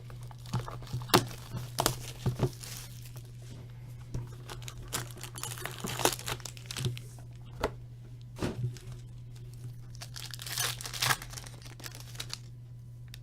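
Trading card packaging being torn open and crinkled by hand: the wrapping of a box of 2015-16 Upper Deck Contours hockey cards and its foil packs, in irregular tearing and crinkling strokes, with a short lull about three seconds in.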